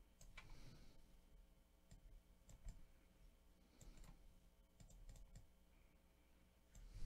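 Near silence: room tone with a few faint, scattered clicks of a computer mouse.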